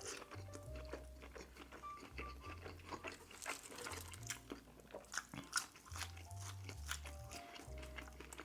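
Close-up eating sounds of Cajun seafood-boil king crab and shellfish: many short crunches, clicks and wet chewing. Soft background music with a slow bass line plays underneath.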